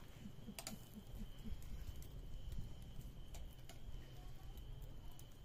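Wood fire crackling under a kebab grill: scattered sharp clicks and pops over a low rumble, with a faint steady high tone.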